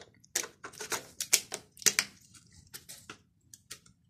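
A battery being slotted into a Nikon D7000's battery compartment and the plastic battery door snapped shut: a run of sharp plastic clicks and knocks, the two loudest near the middle.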